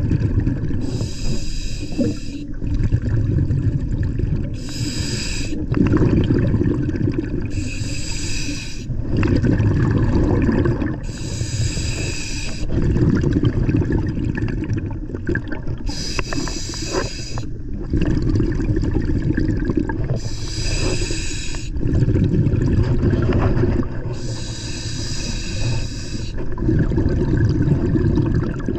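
Scuba diver breathing through a regulator underwater: a hissing inhale through the demand valve, then a low bubbling rumble of exhaled air, seven breaths at roughly three- to five-second intervals.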